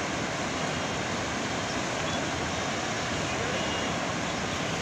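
Steady rushing of a flooded river in spate, fast brown water flowing hard.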